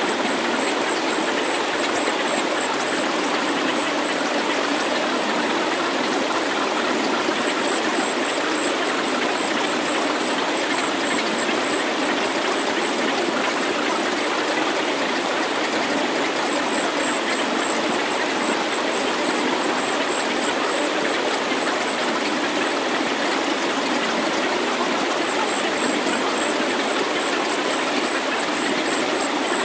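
Synthesized healing sound track: a steady, even rushing noise with no beat or melody. A faint, very high pulsing whistle rides above it and drops out twice for a few seconds.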